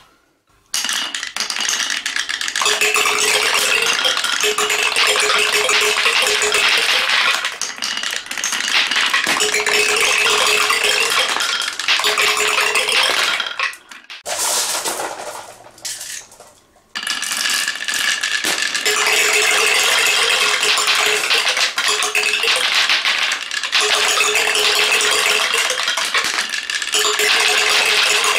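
Many glass marbles rattling and clattering almost continuously as they roll down a wooden marble-run track and tumble through a zigzag cascade of wooden ramps. The clatter breaks off briefly near the start and twice a little past the middle.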